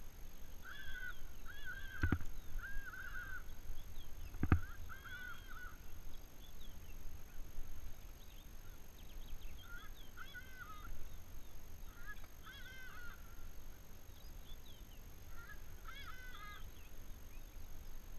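A bird calling in short runs of repeated notes, several times over. Two sharp knocks, at about two and four and a half seconds in.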